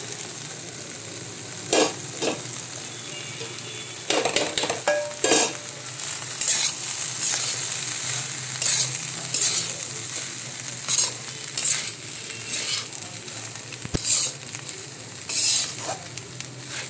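Flattened rice (chira) and mixed vegetables frying in a kadai with a steady sizzle, and a flat metal spatula scraping and knocking against the pan again and again as the mixture is stirred.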